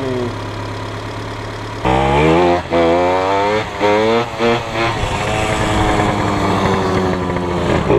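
A Honda car engine idling steadily, then a small dirt bike's engine revving hard from about two seconds in: the pitch climbs and drops several times as it accelerates and shifts, with one longer climb near the end.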